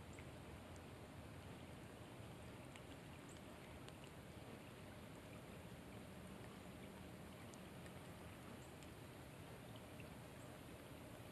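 Near silence: a faint, steady hiss of light rain, with scattered faint ticks of raindrops.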